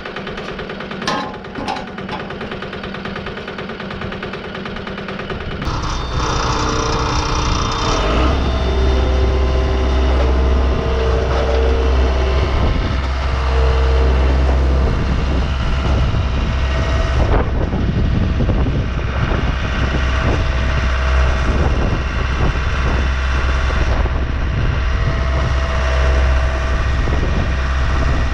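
Wood-Mizer LT15 portable band sawmill running, with a few sharp knocks in the first two seconds; about six seconds in it speeds up and runs loud and steady.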